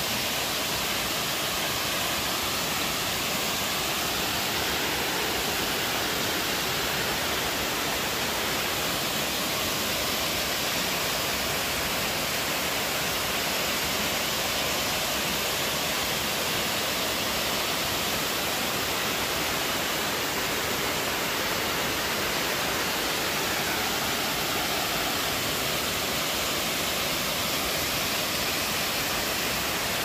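River water rushing down a small rocky waterfall, a steady, unbroken rushing noise.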